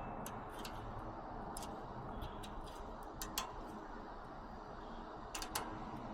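Faint, irregular clicks of a lock pick working the pins inside a cheap aftermarket lock cylinder, over a steady background hiss.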